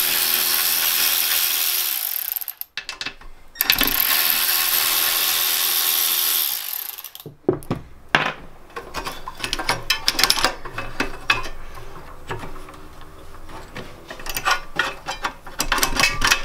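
Electric ratchet running in two bursts of a few seconds each with a short pause between, then irregular metal clicks and clanks of tools and parts being handled.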